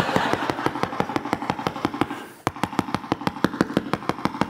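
Rapid, even knocking on a door, about seven knocks a second: someone banging to be let in. Audience laughter fades out under it over the first two seconds.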